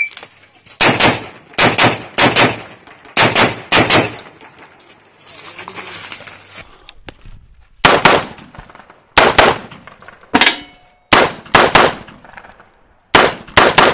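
An AR-15 carbine with a muzzle brake is fired rapidly, about seventeen sharp shots in quick pairs and triples. About four seconds in there is a pause of roughly three seconds while the shooter moves, then the shooting resumes. A steel target rings briefly after one shot midway through the second string.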